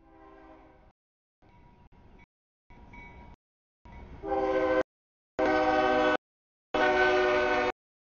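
A CSX freight locomotive's air horn sounds for a grade crossing in a string of about seven short blasts of a multi-note chord, each under a second with brief gaps. The blasts grow much louder about halfway through as the locomotive reaches the crossing.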